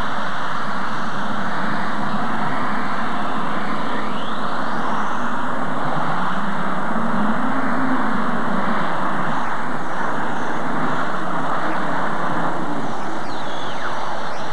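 Heavy modified pulling tractor with supercharged engines running flat out under load as it drags the pulling sled, a loud, steady engine sound that swells in pitch and level about seven seconds in.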